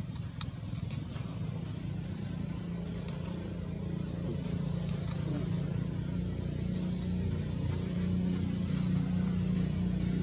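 A motor vehicle's engine running steadily as a low hum, growing louder. A few short, faint high chirps sound over it in the second half.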